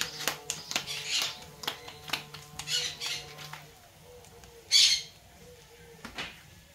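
A wood fire crackling with sharp pops under a comal, and soft slaps of hands pressing masa gorditas onto the hot comal, the loudest about five seconds in.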